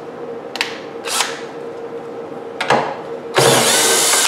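DeWalt cordless drill/driver with a socket bit backing nuts off the router table stand's carriage bolts: a few short bursts, then a longer run starting about three and a half seconds in.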